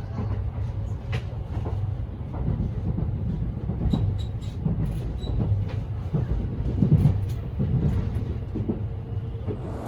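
Kintetsu 80000 series Hinotori limited express train running, heard from inside the passenger car: a steady low rumble with occasional faint clicks.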